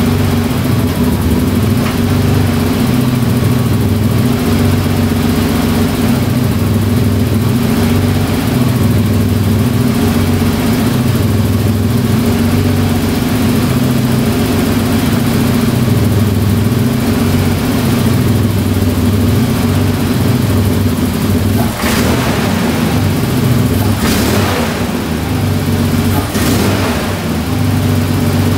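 A 1988 Ford Ranger's 2.9 litre V6 running steadily at idle soon after a cold start. Near the end, three brief hissing noises come over it.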